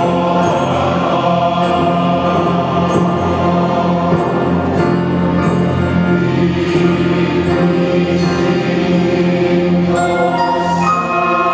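Mixed church choir with a string orchestra, flutes among them, singing and playing long held chords in a slow sacred anthem. About ten seconds in, the low chords thin out and clearer high held notes come in.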